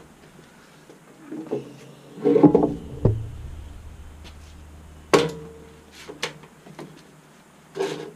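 Scattered knocks and clanks of metal tools and engine parts being handled: a cluster of knocks a couple of seconds in, a thud with a low boom about three seconds in, then a sharp clank with a brief ring about five seconds in and a few lighter clicks after.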